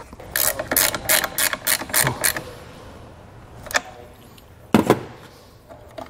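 Hand ratchet with a 10 mm socket clicking as it tightens the nut holding a ring terminal on a car battery's positive post: a quick run of about eight clicks in the first two seconds, then two single clicks later on.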